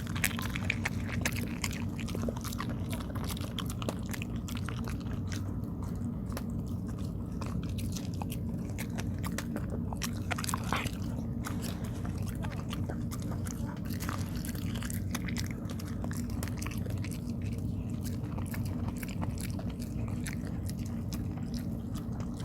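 A dog chewing and biting tteok, sticky Korean rice cake, with many quick irregular clicks and smacks over a steady low hum.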